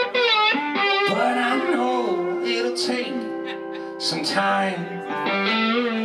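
A live band's guitar-led passage: electric guitar, resonator guitar and electric bass playing together.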